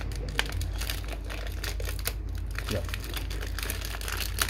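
Clear plastic sheet crinkling and crackling in gloved hands, in irregular small crackles, over a steady low hum.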